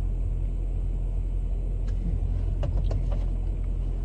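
Steady low rumble with a constant hum, like a running vehicle engine, with a few light clicks between two and a half and three seconds in.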